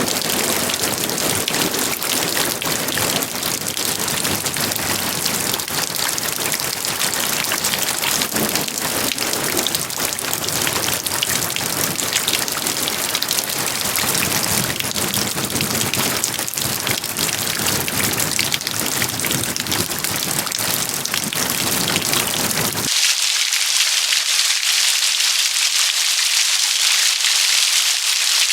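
Steady rain, a dense patter of many drops. Near the end it cuts abruptly to a different rain recording: a brighter, hissier shower with no low rumble.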